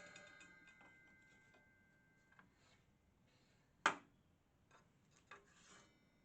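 Vintage 1940s Darra-James table saw coasting down after being switched off, a faint fading whine of the spinning blade and motor, followed by a few light clicks, the sharpest about four seconds in.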